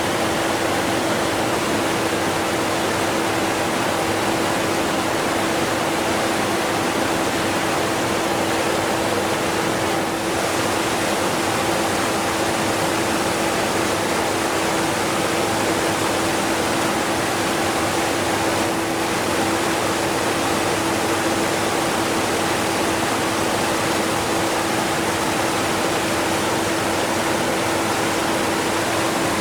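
A strong waterfall rushing steadily, mixed with a vacuum cleaner running underneath, whose steady hum is barely audible beneath the water.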